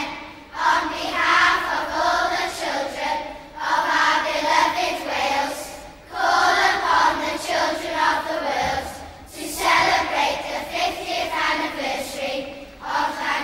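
Children's school choir singing a choral piece, in phrases of about three seconds with short breaks between them.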